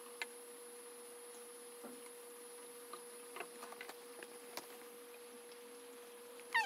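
Faint steady hum with scattered light clicks and taps from plastic bottles being handled while oil is poured into them, and a short rising squeak at the very end.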